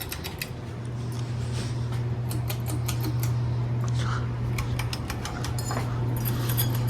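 Ceiling fan motor humming steadily, the hum growing a little louder over the first couple of seconds, with scattered light clicks and ticks over it.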